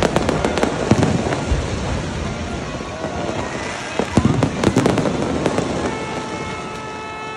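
Aerial fireworks bursting overhead: a rapid run of bangs and crackles over a rumbling haze, thickest at the start and again about four to five seconds in. A steady held tone joins about six seconds in.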